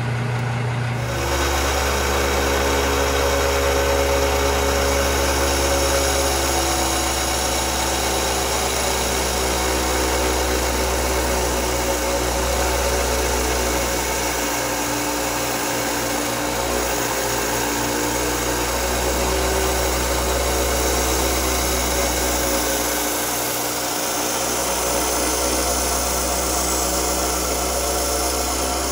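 Diamond Laser Speedster XL wet band saw running steadily, its water-cooled diamond blade grinding through a cut-glass ashtray as it is fed by hand: a constant motor hum under an even grinding hiss.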